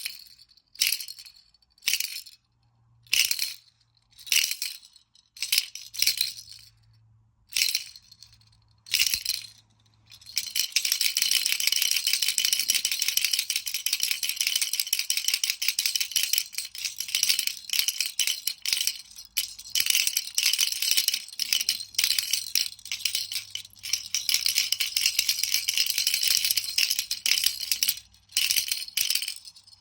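Baby rattle shaken: single shakes about once a second at first, then fast, continuous shaking from about a third of the way in, stopping briefly near the end before it starts again.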